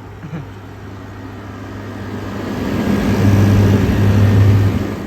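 Vissani 6,000 BTU wall air conditioner running in eco mode: a steady compressor hum, with a rush of blown air that swells about two seconds in, is loudest for a second or two, then eases off near the end.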